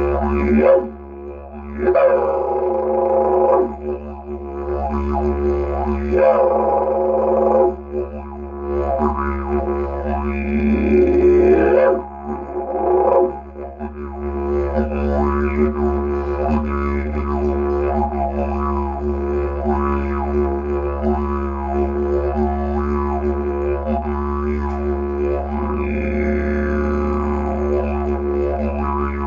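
Bamboo didgeridoo played as a steady low drone, with mouth-shaped overtones sweeping up and down over it. The drone dips briefly several times in the first half, then runs on unbroken.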